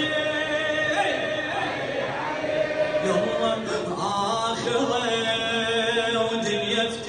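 Many men's voices chanting a devotional anthem together in unison, with long held sung notes.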